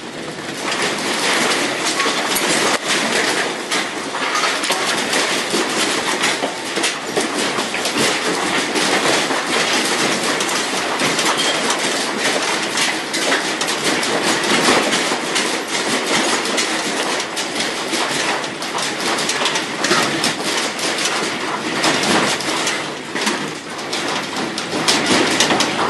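Loud, continuous rattling and clattering of objects shaken by an earthquake, with rapid clicks and knocks over a dense noise that keeps on without pause.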